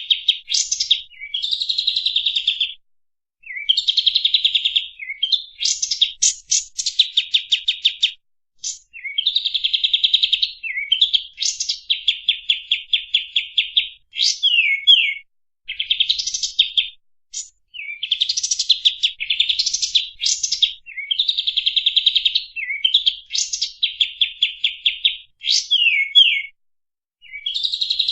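A kapas tembak songbird singing fast, tightly packed trilled phrases, each lasting a second or two, with brief pauses between them. This is the rapid, close-set 'speed rapat' song that keepers play to teach their own birds.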